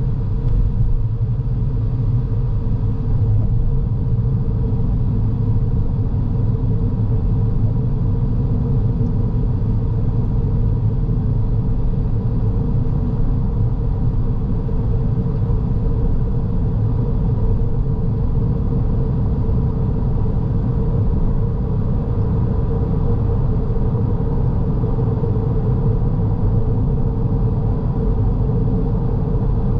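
Car driving at a steady pace: continuous low road and engine rumble with a steady hum above it, no change in speed.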